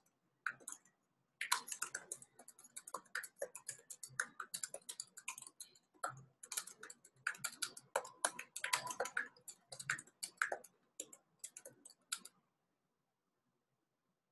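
Typing on a computer keyboard: a fast, uneven run of faint key clicks that starts about a second and a half in and stops near the end.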